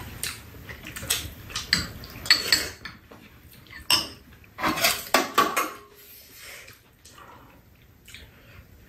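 Metal spoons clinking and scraping against bowls during a meal: irregular light clinks, frequent at first and thinning out over the last few seconds.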